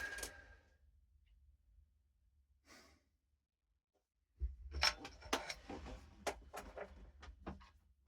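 A sharp, sighing breath out at the very start. Then, from about halfway, a quick run of clicks, knocks and rustles as parts and tools are handled during the subwoofer install.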